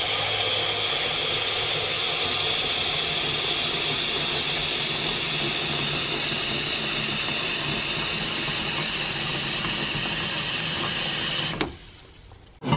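Tap water pouring in a steady stream into a stainless steel pot in a sink, filling it. The tap is shut off about a second before the end, and the sound cuts out suddenly.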